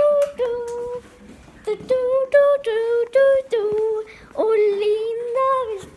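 A single high voice singing a simple unaccompanied tune in held notes, with short breaks about a second in and again about four seconds in.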